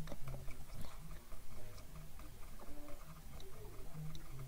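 Scattered small clicks and scrapes of a metal screwdriver tip working against an African snail's shell, pushing out its blue blood, over a low uneven hum.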